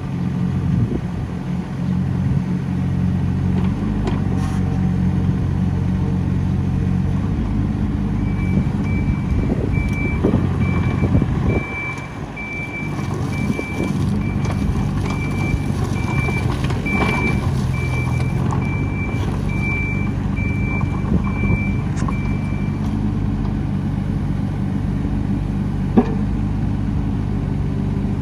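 Cat 302.7D CR mini excavator's diesel engine running, its level changing as the machine works. For about fifteen seconds in the middle, a regular high-pitched warning alarm beeps.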